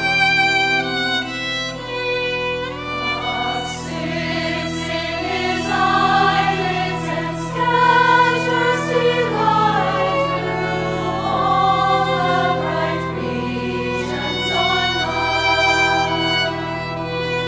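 Women's choir singing a hymn accompanied by a solo violin and pipe organ. The violin and organ play alone at first, with the organ holding steady low notes underneath, and the voices come in about two seconds in.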